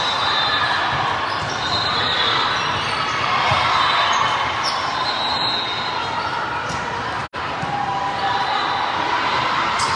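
Echoing spectators' chatter in a gymnasium during a game, with the thuds of a ball on the court. The sound cuts out for an instant about seven seconds in.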